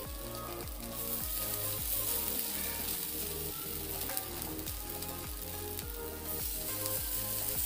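Semolina batter patties sizzling in oil in a hot non-stick frying pan, with more spoonfuls of batter going in. Background music with a steady beat plays underneath.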